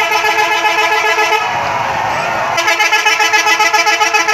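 Indonesian 'telolet' multi-tone bus horn playing its musical tune as a fast-pulsing chord of several horn notes. It breaks off about a second and a half in and starts again about a second later.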